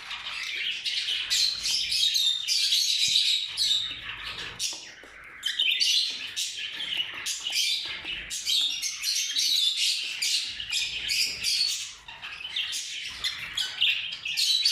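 A group of ring-necked parakeets calling together, many high, harsh chirps overlapping with hardly a pause.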